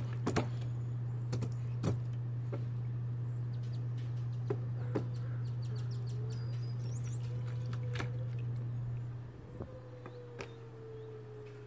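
Small hands patting and slapping shallow water in a plastic kiddie pool: scattered sharp slaps over a steady low hum that drops away about nine seconds in. A few faint bird chirps come in around the middle.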